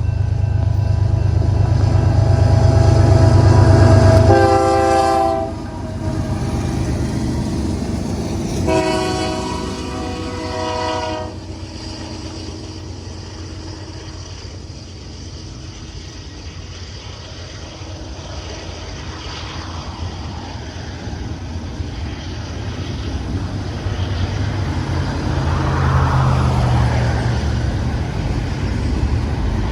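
BNSF diesel locomotives hauling a double-stack container train upgrade, their engines rumbling loudly at first. The multi-tone horn sounds twice: a short blast about four seconds in and a longer one about nine seconds in. After that come the quieter rolling noise of the cars on the rails and a low engine rumble that swells again near the end.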